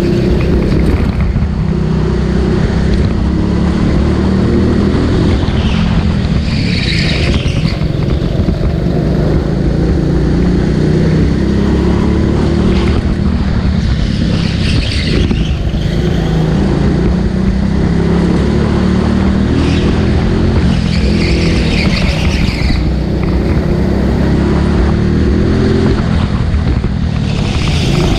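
Go-kart engine running on track, its revs repeatedly climbing and dropping as it accelerates and slows. Four short bursts of higher-pitched noise come about every six to seven seconds.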